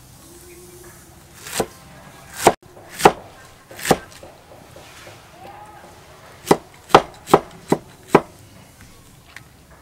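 Large cleaver chopping red cabbage on a thick round wooden chopping board, each stroke a sharp knock of the blade into the wood. Four strokes come spread out, then after a pause of a couple of seconds five come quickly, about two a second.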